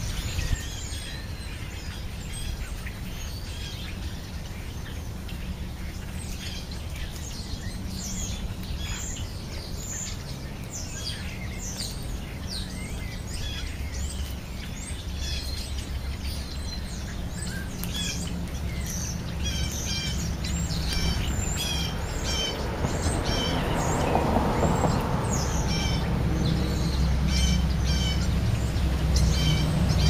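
European starlings and house sparrows chirping and calling in short, repeated notes, coming thicker in the second half. A low traffic rumble builds toward the end as a car passes.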